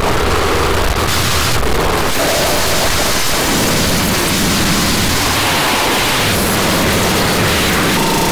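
Harsh digital noise music: a loud, dense wall of noise filling the whole range, cut up so that its texture changes abruptly several times.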